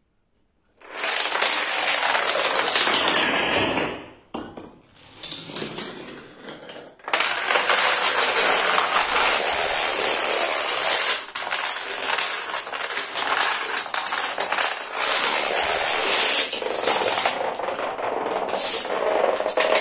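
Chains of plastic dominoes toppling in a long, dense clatter. It starts about a second in, thins out for a few seconds near the middle, then runs loud and continuous through the rest.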